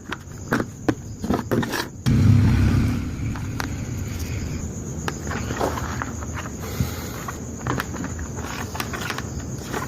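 A small grinder: a few clicks and knocks, then about two seconds in a sudden loud low rumble that eases into a steady running noise.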